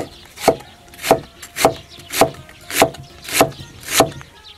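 Chinese cleaver slicing through red pepper and then red onion onto a wooden chopping board, a steady chop about twice a second. The chopping stops shortly before the end.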